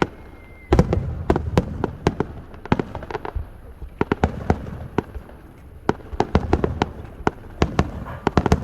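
Fireworks going off in a rapid, irregular run of sharp bangs and crackles, densest about a second in and again near the end.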